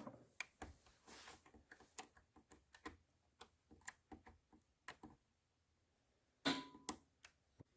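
Faint, scattered clicks and taps of a test light probe being touched to the fuses in a car's fuse box, with a louder short clatter about six and a half seconds in.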